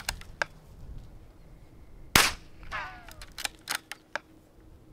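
A single .22 rifle shot, sharp and loud, about two seconds in, with a few lighter clicks before and after it.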